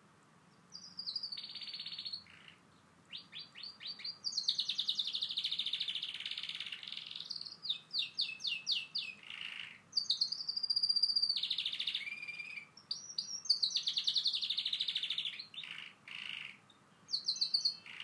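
Yellow domestic canary singing from its cage: phrases of rapid rolling trills and quick repeated chirps, starting about a second in, with short pauses between phrases.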